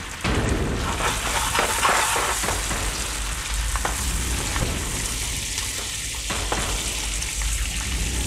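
Spinach sizzling and wilting in a hot frying pan as it is tossed with tongs, with sharp clicks of the tongs against the pan. The sizzle jumps louder just after the start.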